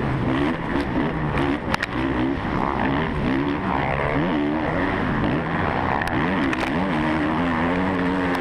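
Suzuki RM-Z450 motocross bike's four-stroke single-cylinder engine, heard close from the rider's helmet, revving up and down as the throttle is worked and gears change. A few sharp knocks come through about a second and a half in and again around six seconds.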